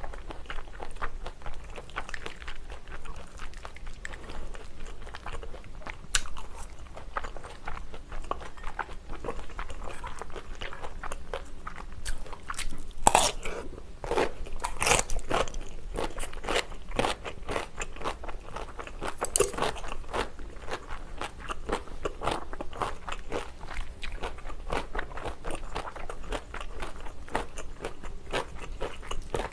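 Close-miked eating of stir-fried pork tripe, sundae and glass noodles with kimchi: wet chewing and biting with many small crackles, and loud crisp crunches about 13, 15 and 19 seconds in.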